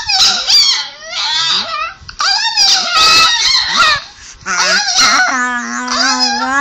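Chihuahua howling at the laptop playing his own 'talking' video: a run of wavering, warbling howls, the last one held long and steady near the end.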